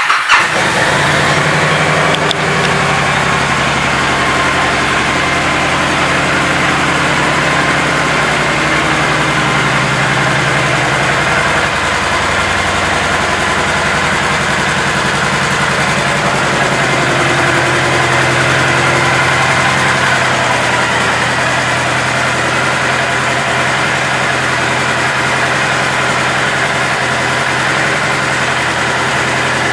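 A 2014 Honda Interstate's 1,312 cc V-twin idling steadily, having just been started.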